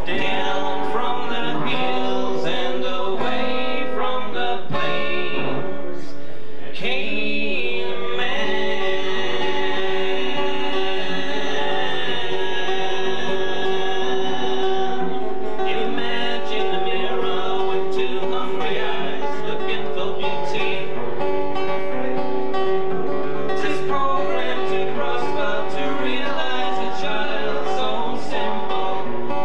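Two men singing a song together, accompanied by an acoustic guitar, with a long held sung note about eight seconds in.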